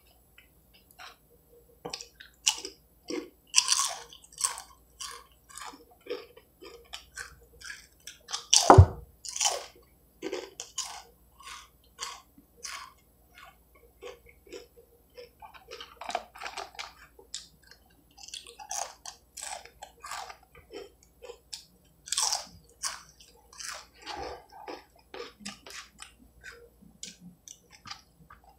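A person chewing and crunching food close to the microphone, with irregular crunchy bites. A loud thump stands out about nine seconds in.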